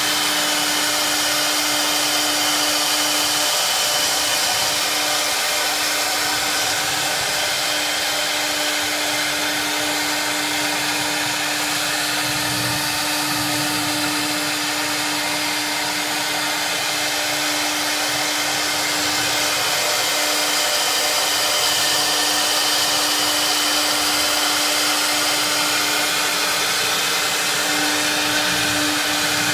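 Spindle of a 4-axis swinging-head CNC router running steadily while it carves a white foam block: one steady whine over the hiss of the cutting.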